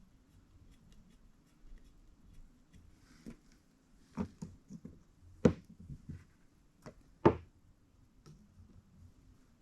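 A few scattered clicks and knocks of small metal tools and parts being handled and set down on a workbench, with two louder knocks less than two seconds apart in the second half.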